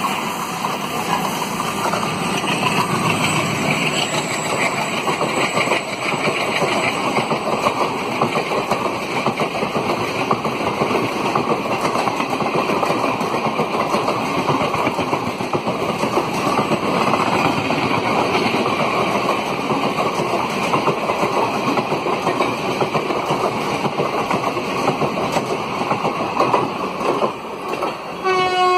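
WDP3A diesel locomotive with its 16-cylinder ALCO engine running through the station at speed, followed by the steady noise of its passenger coaches rolling past on the rails. The noise eases slightly near the end as the last coaches clear.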